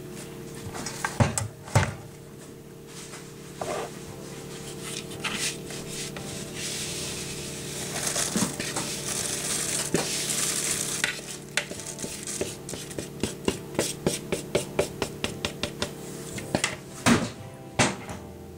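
Dry flour, oats and spices poured from one bowl into a plastic mixing bowl: a soft hiss of falling flour and oats, then a run of quick taps and clinks, about three a second, as the emptying bowl is knocked against the rim.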